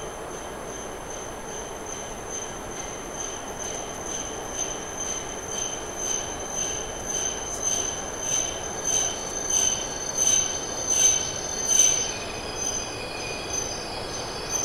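JR East E5 series Shinkansen pulling into the platform and slowing to a stop. A high whine pulses in a rhythm that grows louder and slowly spaces out as the train comes in, loudest about twelve seconds in, then eases off.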